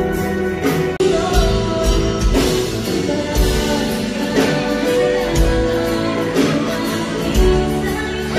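Live band music: a woman singing into a microphone over drums and held chords, with a kick drum thumping about once a second.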